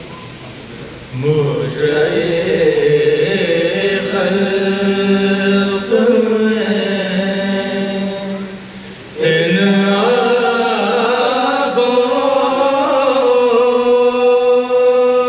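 Unaccompanied men's voices chanting a marsiya, the Shia mourning elegy, in long drawn-out melodic phrases: the lead reciter with the men beside him holding notes. One phrase begins about a second in, dies away, and a second phrase begins about nine seconds in.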